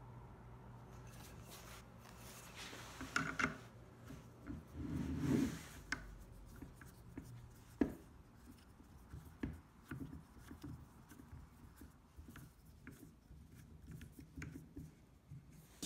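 Bloodwood handle being handled and turned by hand into a tripod pan head: rubbing and scraping, louder about three to five seconds in, then scattered small clicks and knocks.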